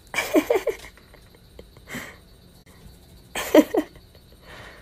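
A person laughing in two short bursts of quick breathy pulses, one just after the start and one about three and a half seconds in, with a softer breath between them.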